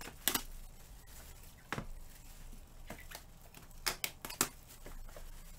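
A handful of sharp, irregular clicks and knocks over a low steady room hum.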